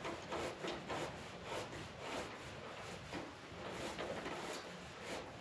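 Faint, irregular scraping and clicking of a hand wrench working a mounting bolt on a motorcycle's stock exhaust, a few strokes a second.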